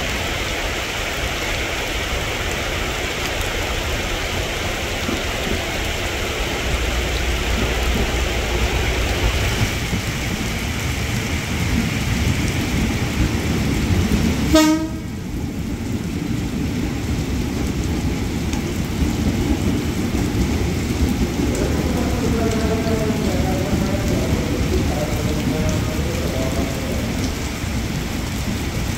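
Heavy tropical rain falling steadily on the station platforms and roofs. About halfway there is a brief horn toot, and in the second half a JR 205 electric commuter train moves off on the next track, its motors giving a faint wavering whine under the rain.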